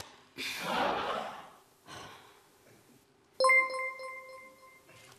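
A single electronic notification chime sounds about three and a half seconds in, a clear ringing tone that fades away over nearly two seconds, marking the arrival of new tweets. Before it, near the start, comes a short breathy noise.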